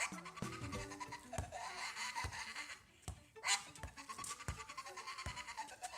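An animal's long, wavering calls that rise and fall in pitch, twice, with a sharp loud noise about halfway through.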